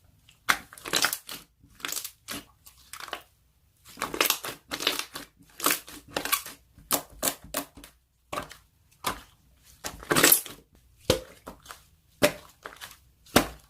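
Slime being squeezed and pressed by hand close to the microphone: a string of irregular crackling, crunching squishes.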